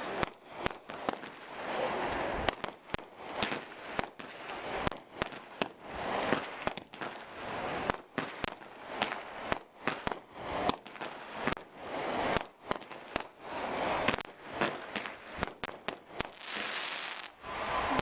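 Fireworks display: aerial shells bursting in a rapid, irregular series of bangs, with crackling from the bursting stars in between.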